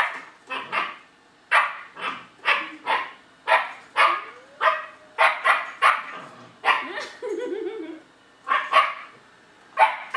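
German Shepherd puppy barking at a robot vacuum cleaner, about twenty sharp barks in quick runs of two to four. Near seven seconds in there is a brief lower, wavering sound before the barking resumes.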